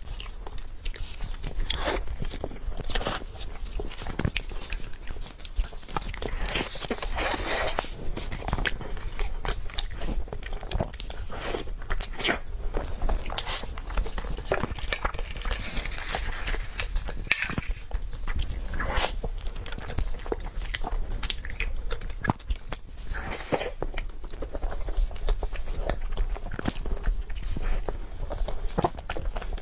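Close-miked biting and chewing of soft snow-skin mochi, with many small mouth clicks and smacks.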